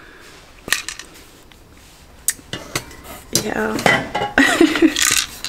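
Ceramic and glass pieces clinking and knocking together as someone rummages in a box of secondhand wares: a few separate knocks at first, then a busier run of clinks over the last two seconds.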